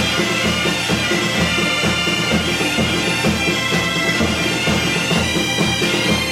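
Instrumental music with held high tones over a regular low beat, possibly bagpipe music.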